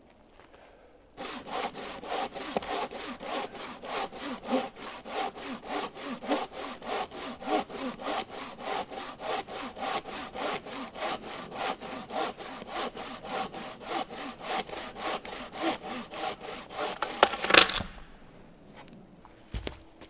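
Hand saw cutting through a dead pine log with steady push-and-pull strokes, about three a second. It starts about a second in, gets louder just before the cut ends, and stops a couple of seconds before the end.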